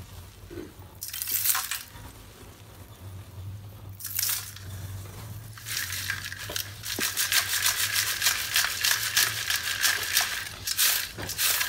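Broken chips of roasted multani mitti (fuller's earth clay) rattling and clinking against a round steel mesh sieve as it is shaken. It comes in short spells about a second in and again about four seconds in, then turns into a fast, continuous rattling from about six seconds on.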